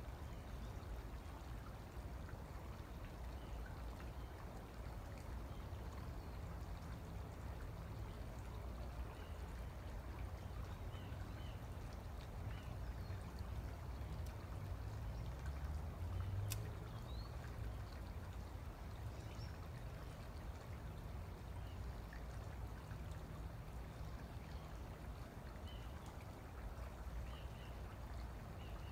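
Steady low outdoor background noise, with a few faint high chirps scattered through it and a single sharp click about sixteen seconds in.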